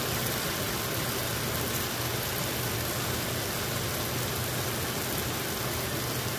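Steady hiss of a quinoa and vegetable stir-fry cooking in a pan on the stove, with a constant low hum underneath.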